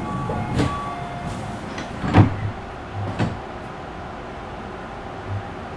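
Inside a Tobu 50000-series commuter train car: a short chime, then the sliding doors shutting with several sharp knocks, the loudest about two seconds in, over the car's steady low hum.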